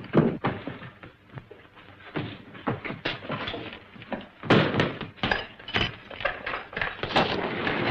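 Film sound effects of a door banging, then a quieter stretch, then a quick run of knocks, thumps and clatter at a barred cell door in the second half.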